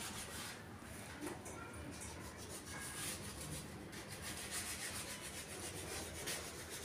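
Faint, steady rubbing and rustling noise, the sound of a handheld phone being moved and handled.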